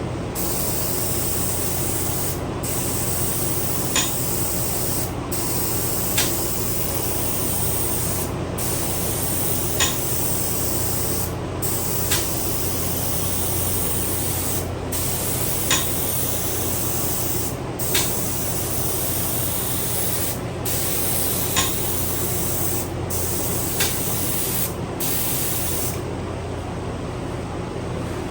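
Steady hissing noise over a low hum, with short sharp ticks every two to three seconds.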